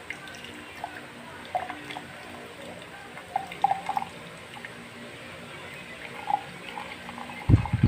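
Liquid being poured into a glass: scattered drips and light clinks of glass. A low thump near the end.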